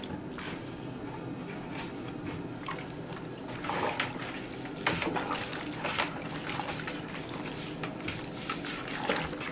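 Soapy water sloshing and splashing in a plastic bucket as a hand swishes and squeezes padded skate protective gear through laundry-detergent wash water, with a few louder splashes partway through.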